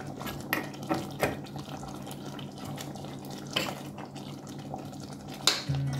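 A pot of mutton and potato curry simmering, with a steady wet bubbling. A spoon scrapes and clinks against the metal pot now and then.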